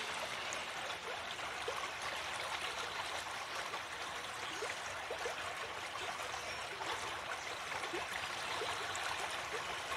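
Running water of a small stream: a steady rush with many small gurgles.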